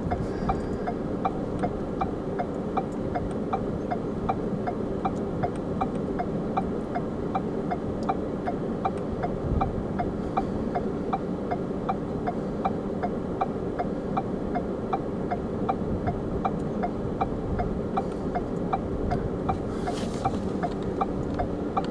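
Steady low mechanical hum with a light, regular tick about three times a second.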